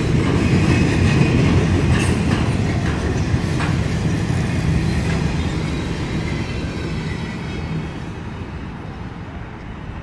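Freight cars of a Union Pacific mixed freight train rolling past: a steady rumble of wheels on rail with a few sharp clacks in the first few seconds, fading over the last few seconds as the end of the train goes by.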